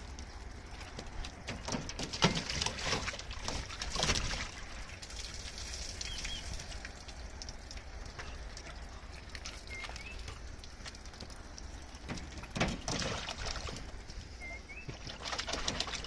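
Bulldog puppy's paws pattering and splashing through shallow water on a wet plastic pickup-bed liner, in a few short flurries of quick taps and splashes, with faint bird chirps now and then.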